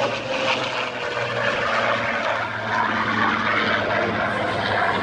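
Spitfire flying past overhead, its propeller-driven piston engine droning steadily with a slight fall in pitch as it passes.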